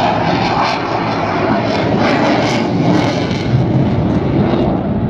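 Fighter jet flying overhead: a loud, steady rush of jet engine noise, with brief faint crackles through the middle.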